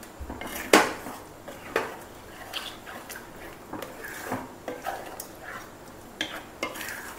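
A spatula scraping and knocking against a metal kadai as chunks of mutton in a thick, oily masala are stirred. The strokes come at irregular intervals, the loudest about a second in.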